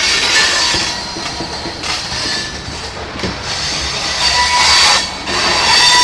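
Freight train's covered hopper cars rolling past on a curve, their wheels running with a continuous rumble. High, steady flange squeals come and go on the curve, strongest near the start and again in the last couple of seconds.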